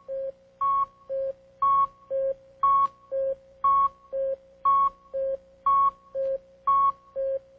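Game-show countdown timer: short electronic beeps alternating between a high and a low tone, about two a second, counting off the ten seconds given to study the puzzle.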